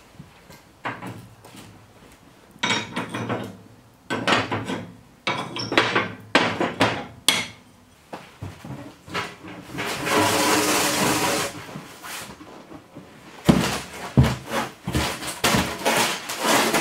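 A large sheet of foil-faced foam board insulation being handled and laid down on the floor: a series of hollow, rumbling flexes and shuffles, a longer scraping hiss about ten seconds in as the sheet slides, and a quick run of knocks and taps near the end.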